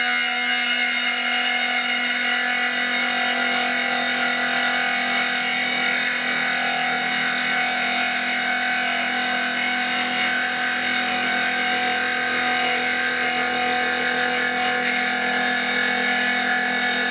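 Spindle of a 6090 CNC router running steadily, a high whine made of many unchanging tones, as its 12 mm three-flute end mill moves along and trims the edge of a chipboard board to square it to the machine.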